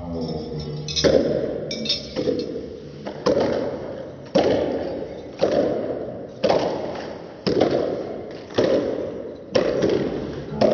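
A group of children clapping together in a steady beat, about one clap a second.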